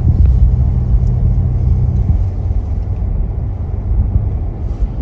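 Pickup truck engine and road rumble heard from inside the cab while driving slowly through snow; a steady low hum drops away about two seconds in.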